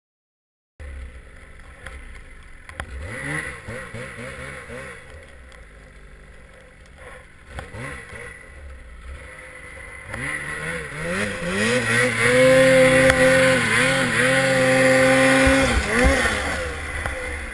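Ski-Doo Freeride 850 Turbo two-stroke snowmobile engine revving in repeated blips. It then winds up and holds high at full throttle for several seconds, with a hiss of churned snow, as the sled trenches down and gets stuck in deep powder. The revs drop off near the end.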